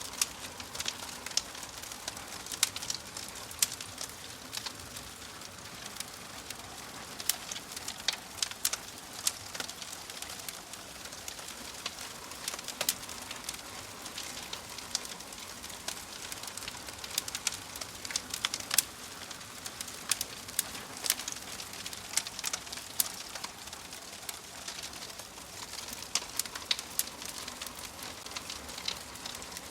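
Fire crackling: a steady hiss with frequent sharp pops and snaps at irregular intervals.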